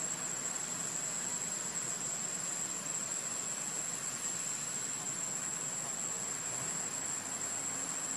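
Steady, high-pitched insect drone over a constant background hiss.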